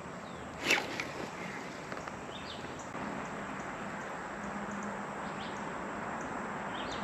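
Outdoor ambience: a steady hiss with a few short, high chirps, and one brief sharper sound about a second in.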